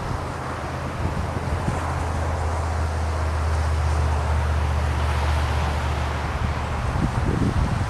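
A low, steady engine drone from a passing vehicle, fading out about six seconds in, over the hiss of surf and wind.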